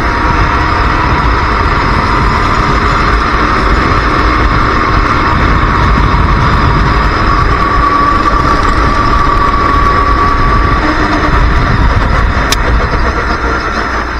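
Racing kart engine at race pace, heard from on board, with a steady high engine note that climbs a little past the middle as the kart accelerates. A single sharp click comes near the end.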